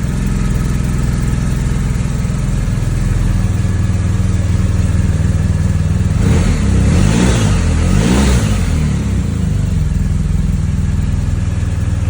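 Motorcycle engine idling after a cold start, revved twice about six and eight seconds in, each rev rising and falling in pitch.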